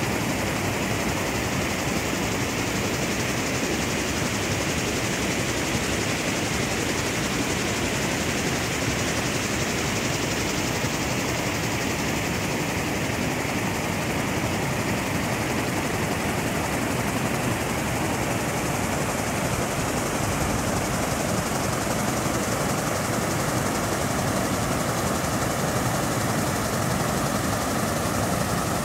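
Water spilling over a cascade wall into a pool: a steady, even rush.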